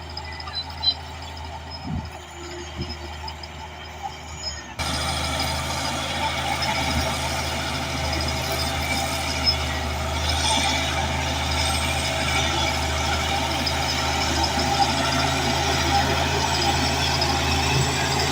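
Heavy bulldozer's diesel engine running steadily, with a few short knocks in the first few seconds. About five seconds in, the sound cuts suddenly to a louder, steady engine noise with more rumble and grind over it.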